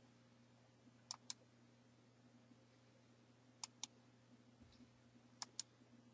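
A computer mouse double-clicking three times, each pair of sharp clicks about two seconds after the last, over a low steady hum.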